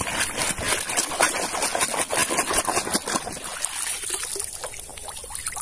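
Shallow muddy water splashing and sloshing as a toy truck is swished through it by hand, a quick run of splashes that eases off about halfway through.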